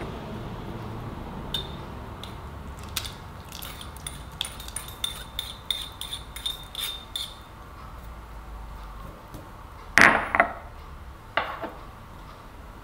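A utensil stirring a liquid egg-and-butter mixture, clinking quickly and repeatedly against the side of a ceramic bowl, about three or four light clinks a second. A few seconds later come two or three louder knocks as something is set down.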